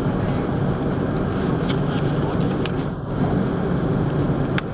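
Steady cabin rumble aboard an Airbus A330-300 rolling along the ground: jet engine and airframe noise heard through the cabin, with a few faint rattles.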